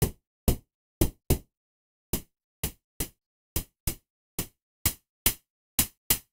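Synthesized snare drum, white and red noise shaped by low-pass and high-pass filters and a short envelope, played in about fourteen quick hits at uneven spacing. Each hit is a sharp hissy crack with a little low body that dies away at once.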